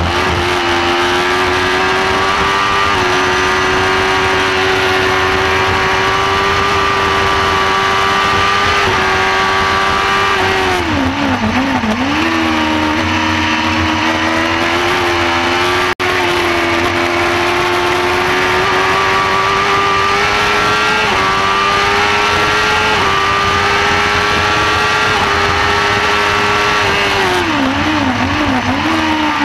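Onboard sound of a Shortcar racing car's high-revving engine at speed, holding high revs and stepping up through the gears. Twice, about eleven seconds in and again near the end, the revs drop with a few quick throttle blips as it brakes and downshifts for a corner.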